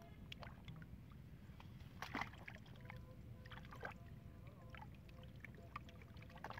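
Faint sloshing of hands stirring and scooping through muddy water in a shallow hole, with a few small splashes, over a low steady background rumble.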